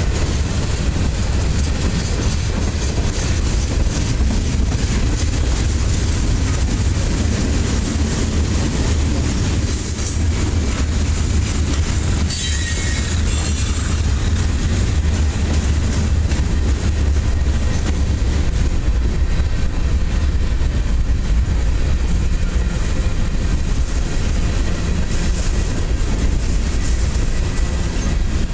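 Freight cars rolling past at close range: a steady rumble of steel wheels on the rails, with brief high squeals from the wheels about ten and thirteen seconds in.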